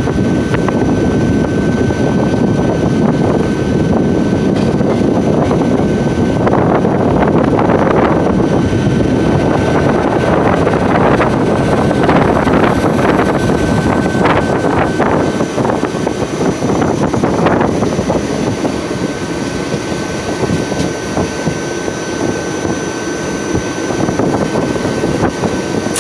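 Steady rumble of an express train on the move, heard from aboard, with bursts of wheel clatter over rail joints and points between about six and eighteen seconds in. A thin steady high tone runs under it.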